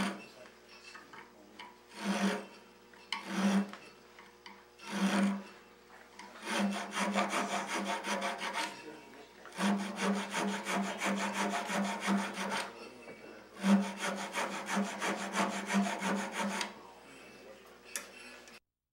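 Round rasp filing a spiral groove into a wooden spindle by hand: three single strokes, then three runs of steady back-and-forth rasping, each about three seconds long.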